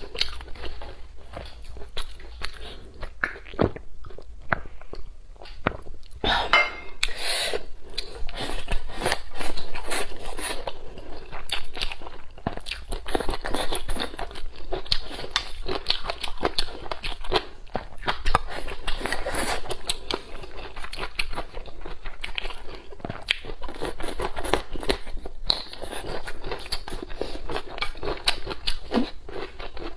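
Close-miked chewing and crunching of food: a continual run of crisp bites and mouth clicks.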